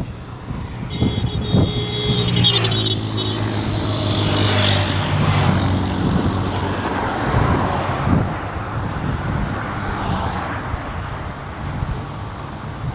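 A motor vehicle drives past on the highway. Its engine hum comes up about a second in and dips slightly in pitch as it goes by, with tyre rush on the road loudest near the middle, then fades into steady road and wind noise.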